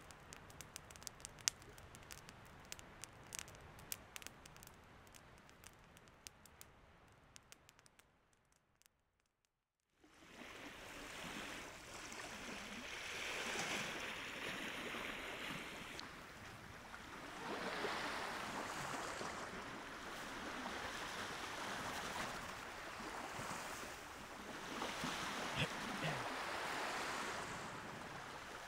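A run of sharp crackling clicks that fades out after about eight seconds. After a short silence comes the wash of Lake Baikal's waves on the shore, swelling and falling every few seconds.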